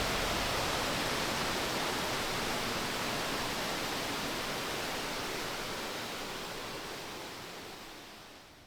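Steady rushing noise of a waterfall, fading out gradually toward the end.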